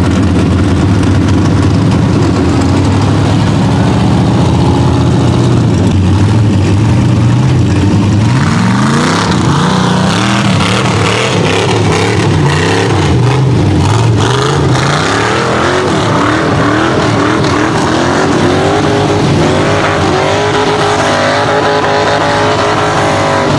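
Rock bouncer buggy's engine running hard under load on paddle tires, climbing a dirt hill. It holds steady for the first several seconds, then revs up and down repeatedly about eight seconds in as the throttle is worked, settles, and climbs in pitch again near the end.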